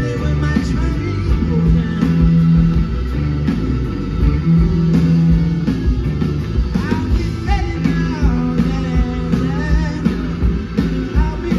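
Live blues-rock band playing loud: electric guitars over bass guitar and drums, with bending guitar lines around the middle.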